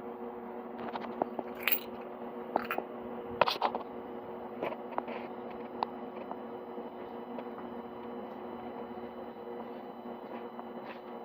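Diesel air heater starting up: its motor runs with a steady hum, with scattered light clicks and ticks over it, mostly in the first half.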